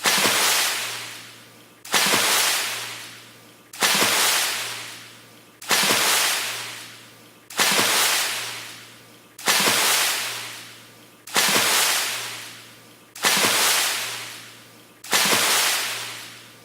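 Water splash repeated about every two seconds, nine times: each a sudden splash of hissing spray that fades out over a second and a half.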